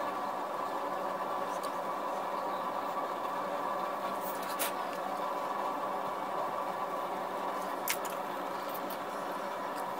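Small scraping cuts of a hand carving gouge in the wood of a gunstock, over a steady background hum. Two sharp clicks stand out, about halfway through and again about three seconds later.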